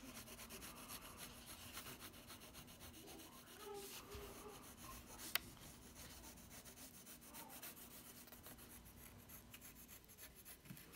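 Faint scratching of a pencil traced along the edge of a paper pattern on a wooden block, with one sharp click about five seconds in.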